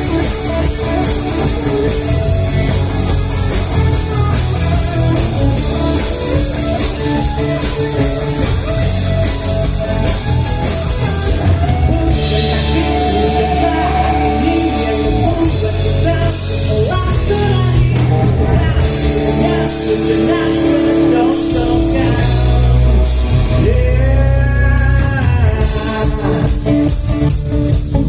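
Live rock band playing a song loud, guitar to the fore over bass and drums, with some singing.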